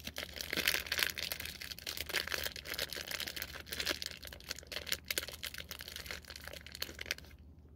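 Plastic fruit-snack pouch crinkling and tearing as it is worked open by hand, a dense run of crackles that stops shortly before the end.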